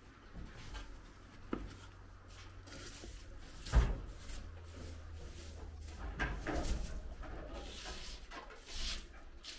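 A hand duster brushing and flicking over a window and its frame: a run of short swishes and light knocks, with one sharp thump a little under four seconds in.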